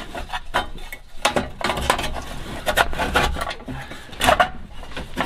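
Loose coins and metal washers clinking and rattling in the 1976 Chevy K10's metal dashboard ashtray as it is handled in its dash opening: a steady run of quick, irregular metallic clicks and scrapes.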